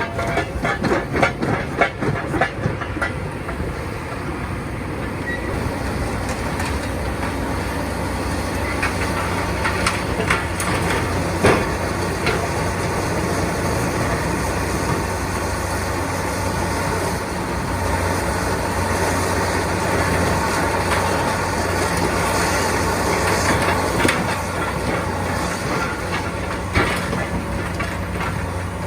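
Backhoe (hydraulic excavator) diesel engine running steadily under load, with clanks and cracks of demolition debris being crushed and moved. A quick run of knocks comes in the first few seconds, and single sharp cracks come about a third of the way in and again near the end.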